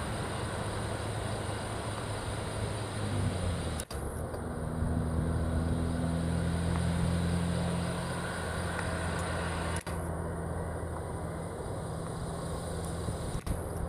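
Steady low engine drone, briefly dropping out about 4 s and 10 s in, and again near the end.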